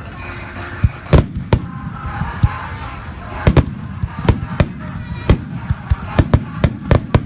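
Starmine fireworks display: a rapid series of sharp aerial shell bursts, more than a dozen, coming faster toward the end, over a background of crowd voices.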